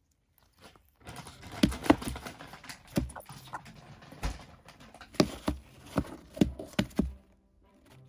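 Irregular sharp taps and knocks from African grey parrot chicks moving about a plastic tub and pecking at the camera held over them. They come in a loose run from about a second in until near the end, some much louder than others.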